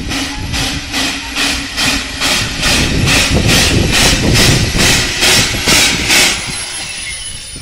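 Narrow-gauge steam tank locomotive 'Axe' working, its exhaust chuffing at about three beats a second. The chuffs grow louder, then stop about six seconds in.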